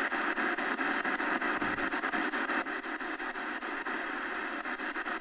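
Shortwave static from the XHDATA D-901's speaker: a steady hiss crossed by a fast, regular ticking, with no broadcast voice coming through.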